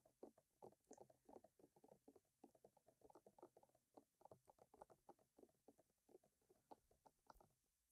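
Faint wet mouth sounds: a quick, uneven run of soft clicks and smacks from lips and tongue, several a second.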